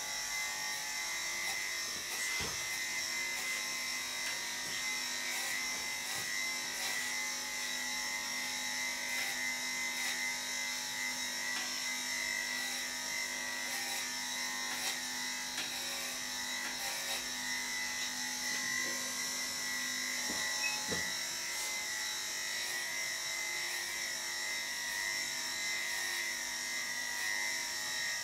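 Electric dog grooming clippers running steadily while clipping a bichon frise's coat, a constant motor hum with a high whine.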